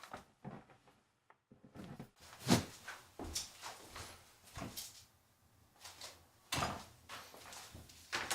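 A string of separate knocks, thuds and rustles, like things being handled or a door or drawer being moved, with the sharpest knock about two and a half seconds in.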